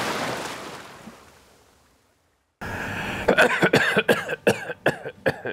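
Surf washing up on a beach, fading away over about two seconds. After a short silence, a man coughs and clears his throat in a string of short, rapid bursts.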